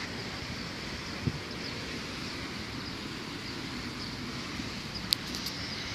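Wind buffeting the microphone over a steady hiss of open air, with a low thump a little past one second and a sharp click followed by a few smaller ticks near the end.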